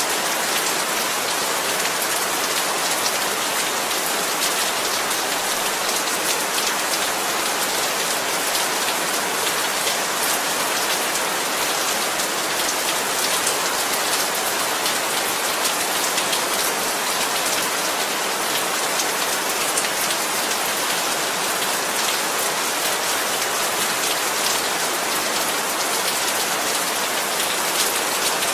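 Heavy rain falling steadily: a dense, even hiss of countless drops hitting the ground.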